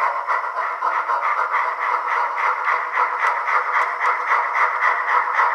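Simulated steam-locomotive chuffing from the Soundtraxx Tsunami2 sound decoder of an HO scale brass steam locomotive, played through its small onboard speaker as the model runs. The chuffs come in a quick, even rhythm, thin and without any bass.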